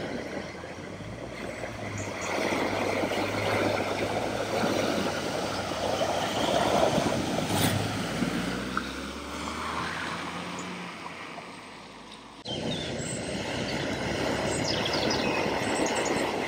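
A vehicle's engine running as it drives through deep flood water, with water surging and splashing around it. About twelve and a half seconds in the sound cuts suddenly to more rushing water and engine noise.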